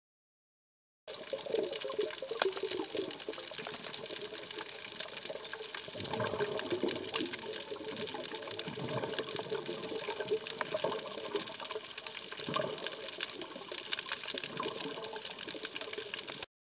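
Underwater sound picked up by a camera held beneath the surface: a steady rush of moving water with bubbling and scattered sharp clicks. It starts abruptly about a second in and cuts off just before the end.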